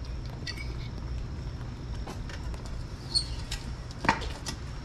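Propane-fired metal-melting furnace burner running with a steady low rumble, with sharp metal clanks, the loudest two about three and four seconds in, as tongs work in the furnace and the lid is set back on.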